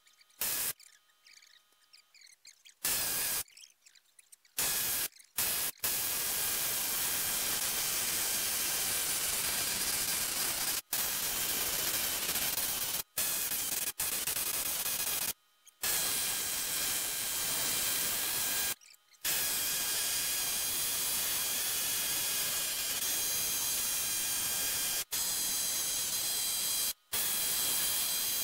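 Pneumatic needle scaler hammering paint and rust off the cast-iron base of a Bridgeport milling machine, a harsh rattling hiss. It starts and stops in short spurts at first, then runs in long stretches with brief pauses as the trigger is let off.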